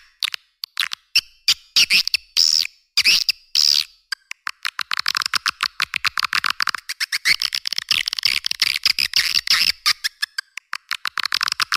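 Swiftlet lure call, a recording of swiftlet chirps played to draw swiftlets into a bird house, thin and high with no low end. Separate chirping, warbling calls at first, then from about four seconds in a fast, continuous run of clicking chirps.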